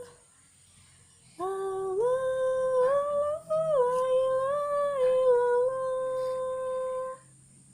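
A child humming a tune without words in long held notes, starting about a second and a half in and stopping shortly before the end.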